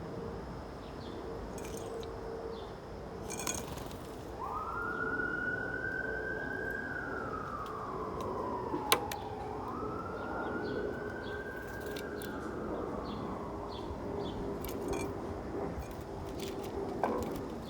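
Emergency vehicle siren wailing: two slow sweeps up and down in pitch, starting about four seconds in and fading out about four seconds before the end. A single sharp click sounds near the middle.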